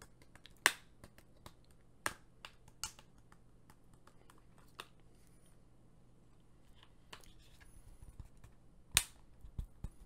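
Plastic clips of an Nvidia Shield TV Pro's case snapping and clicking as the shell is pried apart by hand: a few sharp clicks in the first three seconds, and the loudest snap about nine seconds in.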